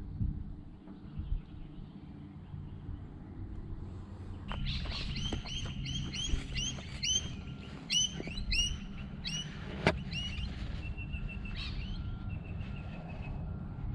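Wild birds calling: from about four seconds in, a run of repeated hooked high notes about twice a second, then thinner, steadier notes near the end, over a low background rumble. A single sharp click falls about two-thirds of the way through.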